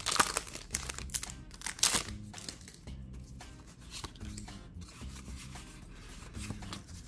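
Foil booster-pack wrapper crinkling and tearing open, loudest in the first two seconds, then lighter rustling as the trading cards are pulled out and handled, over quiet background music.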